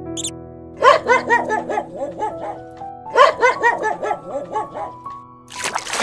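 Two quick runs of yapping animal calls, about six short rising-and-falling notes a second, each run under two seconds long, over steady background music. A rush of hissing noise comes in near the end.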